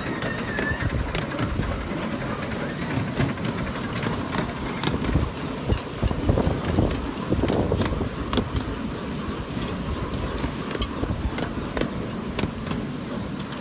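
Ride-on miniature steam locomotive running along its track: a steady rumble of wheels on the rails with irregular sharp clicks over the rail joints, a little louder about six to eight seconds in.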